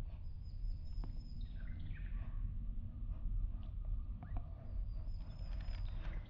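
Birds chirping and calling, with thin high whistled notes near the start and again near the end, over a steady low rumble and a few faint clicks.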